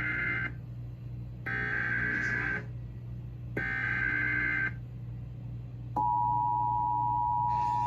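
Emergency Alert System SAME header: three bursts of buzzy data tones, each about a second long, marking the start of an alert. About six seconds in, the steady two-tone EAS attention signal begins.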